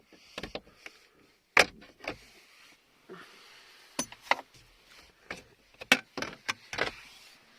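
Plastic speaker grille cover in a Haval H9's interior being pried off: a series of sharp plastic clicks and snaps, the loudest about one and a half seconds in, with light scraping between them.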